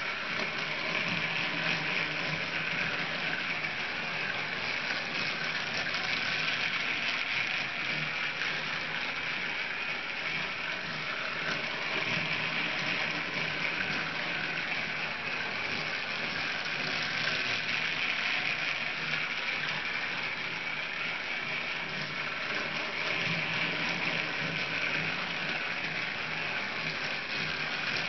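Battery-powered TrackMaster Rebecca toy engine running round plastic track with its tender and wagons: a steady whir from its small electric motor and gears.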